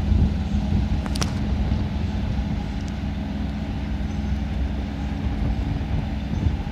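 Diesel shunting locomotive (401Da class) pulling out with a train of passenger coaches, its engine running with a steady low note. A brief high-pitched clicking sound about a second in.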